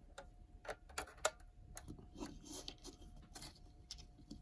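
Faint, irregular plastic clicks and taps from handling an NVMe-to-USB drive adapter and plugging it into a computer's USB port, over a faint steady tone.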